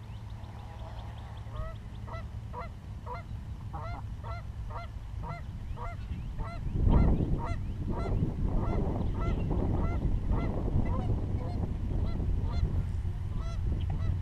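Geese honking at a pond: a steady string of repeated honks, two or three a second, with a loud rushing burst about halfway through, after which the honking grows denser and overlapping.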